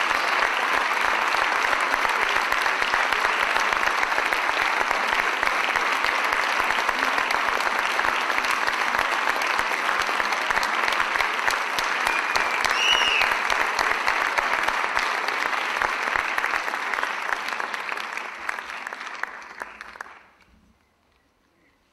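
Audience applauding steadily, then dying away over the last few seconds and stopping.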